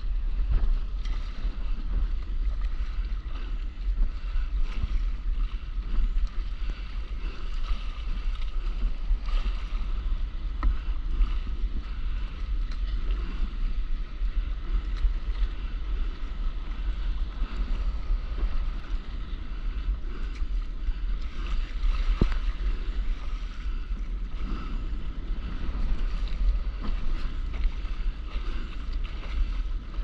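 Steady low rumble of wind buffeting the microphone, over water lapping and splashing around a stand-up paddleboard on open sea.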